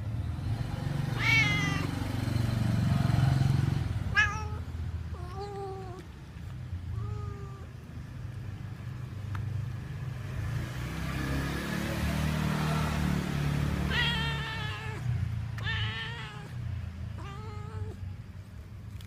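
Domestic cat meowing about seven times, some calls long and falling in pitch, others short and lower, over a steady low rumble.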